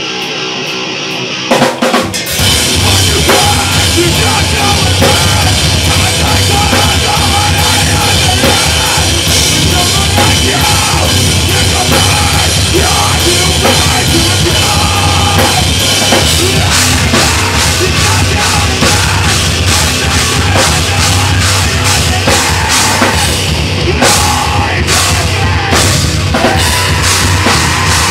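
Metalcore band playing live and loud: distorted electric guitars, bass and a pounding drum kit, with the vocalist screaming into the microphone. About two seconds in, the full band comes in after a brief thinner, quieter passage.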